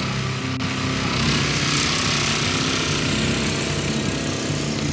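ATV's small petrol engine running steadily, with background music underneath.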